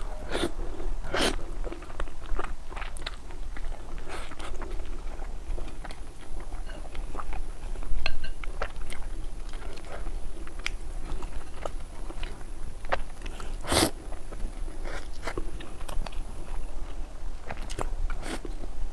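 Close-miked chewing and biting of food, with scattered crunches and clicks and one sharp, louder click about fourteen seconds in.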